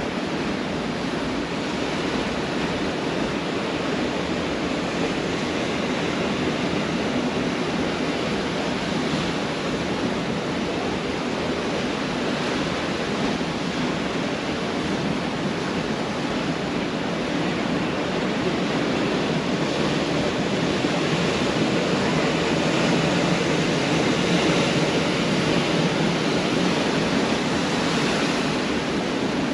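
Pacific Ocean surf breaking on a beach: a steady wash of waves, swelling a little louder about two-thirds of the way through.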